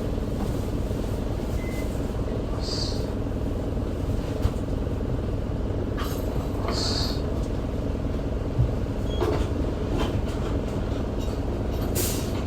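Diesel engine of an Isuzu Erga city bus (QDG-LV290N1) running at a steady low idle, heard from inside the cabin. Short hisses of air come about three and seven seconds in, with a louder, sharper burst of air near the end.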